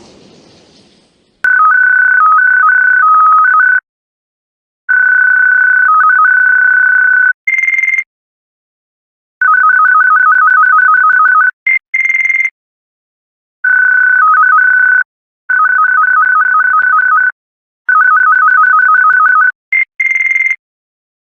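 Electronic beeping in repeated bursts of one to two and a half seconds, separated by short silences. In each burst a steady tone flickers rapidly down to a slightly lower tone and back, and three of the bursts end in a brief higher beep.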